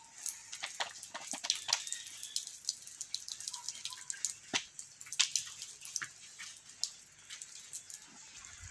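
Faint, irregular small clicks and taps, scattered unevenly, with a few sharper ones about half a second, four and a half and five and a quarter seconds in.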